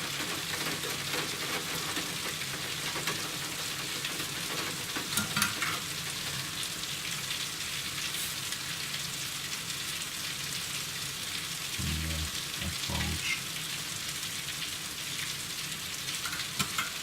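Steady hiss of heavy rain, with a few faint clicks and a brief low knocking about twelve seconds in.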